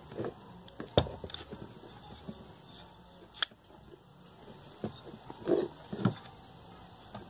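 Scattered light clicks and knocks from handling the parts of an opened Mallory electric fan motor, with a sharp click about a second in the loudest, as fiber washers are fitted to take up the shaft's end play.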